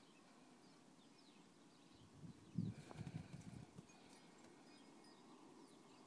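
Footsteps crunching in snow: a short cluster of low, dull crunches lasting about a second and a half, near the middle. Otherwise near silence.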